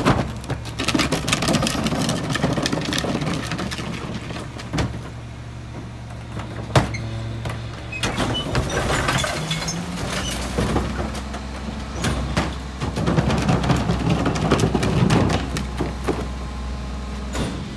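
Garbage truck at work: its diesel engine runs steadily and revs up about ten seconds in and again near the end, amid repeated metallic clattering and knocks, with one sharp knock about seven seconds in.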